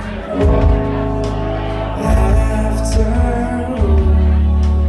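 Live band playing an indie song: sustained chords over a heavy, steady bass, with sharp drum hits about once a second.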